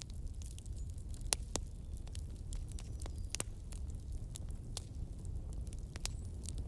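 Pot of meat-and-vegetable curry simmering over a wood fire: irregular sharp crackles and pops over a steady low rumble.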